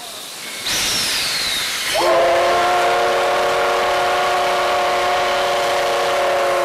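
Steam locomotive C58 363 blowing its whistle: a burst of steam hiss about a second in, then one long steady blast from about two seconds in that stops abruptly near the end. It is the whistle given for departure.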